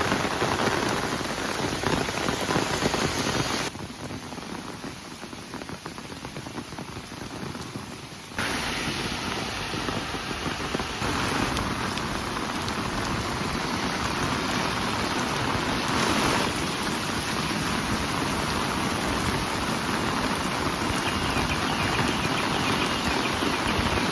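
Heavy rain pouring down, a steady hiss of rain on the ground; it drops abruptly quieter about four seconds in and comes back up just after eight seconds.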